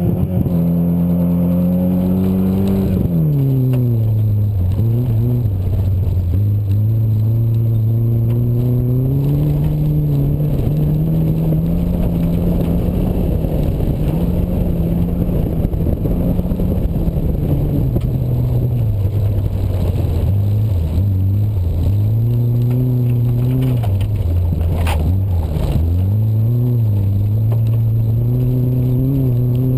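Ford Festiva's small four-cylinder engine pulling hard on a dirt rallycross run. The revs climb for the first three seconds, drop sharply, then rise and fall repeatedly through the rest of the run.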